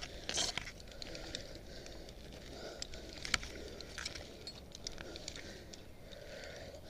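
Tree climber's rope, carabiner and poplar leaves being handled close to a helmet-mounted camera: scattered light clicks and rustles over a low, steady rumble of wind.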